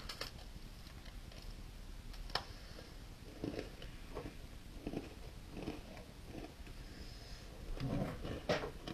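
Person biting into an Oreo sandwich cookie with a sharp crunch a couple of seconds in, then chewing it with a chew about every two-thirds of a second, louder near the end.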